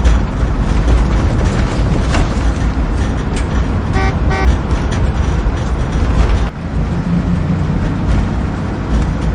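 Heavy vehicle engine running with a loud, steady rumble, and two short horn toots about four seconds in.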